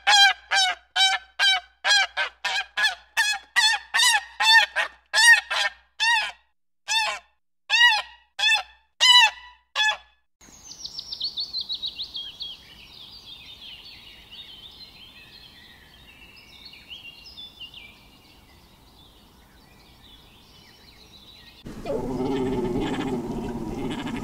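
Domestic geese honking: a run of loud, separate honks at about two a second for the first ten seconds. Then a faint, high, rapid bird chatter trails away. Near the end a lower, rough animal sound starts.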